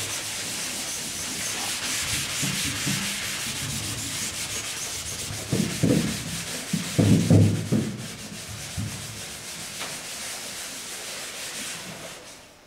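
A Scotch-Brite pad rubbed by hand over the primed metal skin of an aircraft wing: a steady, scratchy scuffing of quick strokes, scuff-sanding the primer to give the top coat a tooth to grip. A few dull thumps come around the middle, and the scuffing fades out near the end.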